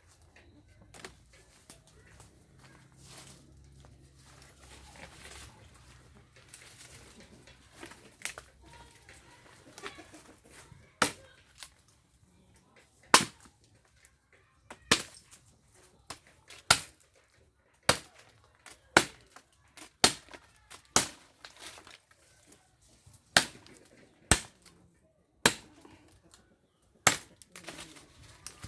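Repeated sharp knocks, roughly one a second, beginning about 11 seconds in, over chickens clucking.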